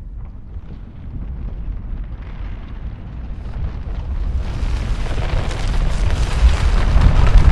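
Deep rumbling roar that builds steadily louder, gaining a hissing edge in its last few seconds.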